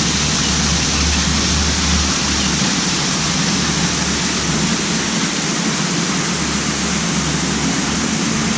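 Waterfall: a steady, loud rush of falling water that begins and ends abruptly.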